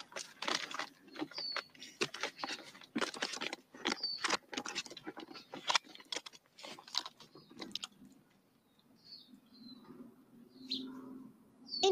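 A run of short scuffs and knocks as someone climbs a rope ladder with wooden rungs up a tree trunk. A few short bird chirps sound over it. The scuffing stops about eight seconds in, leaving a faint low hum.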